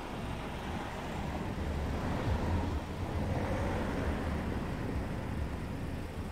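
A motor vehicle driving past, its engine and road noise swelling from about a second and a half in and easing off near the end, over a low steady rumble.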